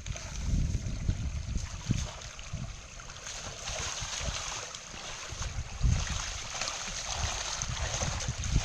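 Wind buffeting the microphone in uneven low gusts, over a steady rushing hiss of water.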